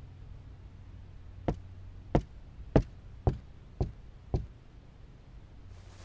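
Six dull knocks, evenly spaced a little over half a second apart, starting about a second and a half in.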